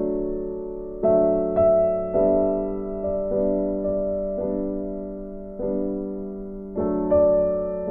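Soft background piano music: chords struck every second or so, each fading away before the next.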